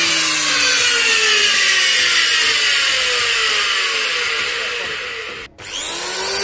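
Electric hand planer running unloaded, a loud whine whose pitch sinks slowly, with its motor bearings worn. About five and a half seconds in it cuts off abruptly and the planer, now with new bearings, starts up again, its whine rising.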